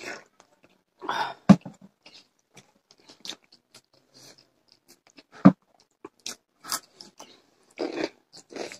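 Close-up chewing of rice and curry eaten by hand, in short scattered bursts with brief silences between, and two sharp clicks, one about a second and a half in and one about five and a half seconds in.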